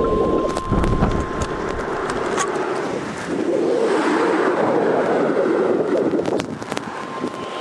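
Steady wind and vehicle noise with scattered sharp taps. A steady electronic beep from a weather radio sounds for about the first two seconds, then stops.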